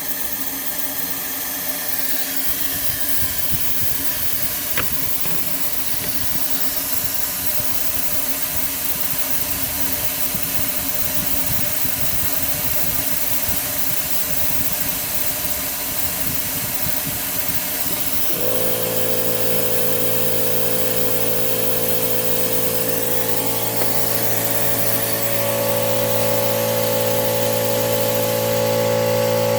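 Compressed air hissing steadily as it escapes from the leaking STC fitting on the high-pressure oil pump of a Ford 6.0L diesel, the leak behind its hot no-start. About eighteen seconds in, a steady motor hum joins in and keeps going.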